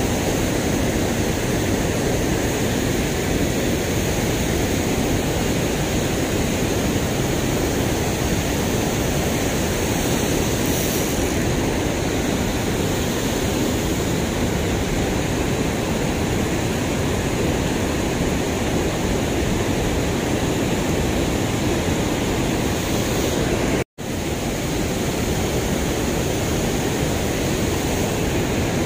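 Steady rushing of river water pouring over a low concrete weir. It cuts out for an instant near the end, then resumes unchanged.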